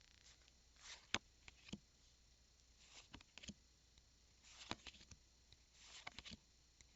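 Pokémon trading cards being handled, with four short bursts of soft rustling and crisp card clicks spread over the stretch.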